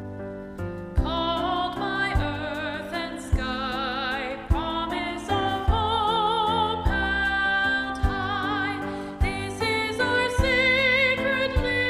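A hymn sung by a solo voice with strong vibrato over piano accompaniment; the voice comes in about a second in, after a few piano chords.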